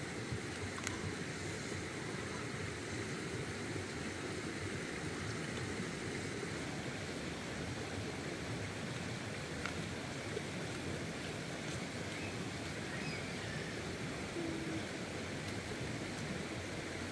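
A steady, even rushing noise with a couple of faint clicks.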